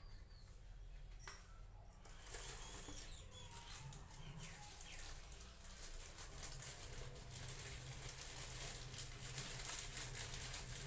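Small household objects being handled by hand: a sharp click about a second in, another light knock shortly after, then continuous rustling with many small ticks, as puja items are set out and worked with.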